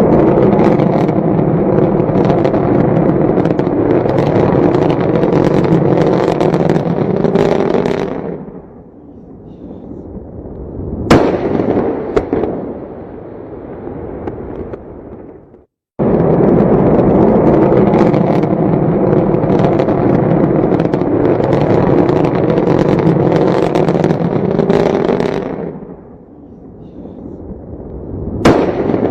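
A loud, dense crackling roar lasts about eight seconds and then dies away. About eleven seconds in comes a single sharp bang that rings out. The same sequence then starts again and repeats.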